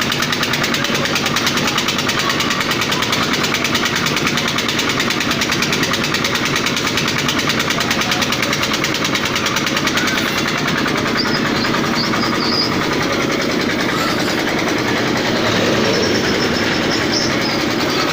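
An engine running steadily with a fast, even pulse. About ten seconds in, the high hiss drops away.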